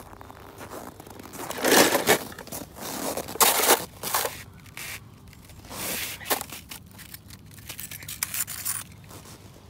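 Snow crunching and scraping in several short, irregular bursts, from footsteps in the snow and a hand pressing into it.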